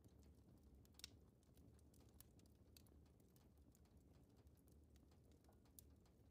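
Near silence: a faint low hum with scattered soft clicks, one slightly louder about a second in.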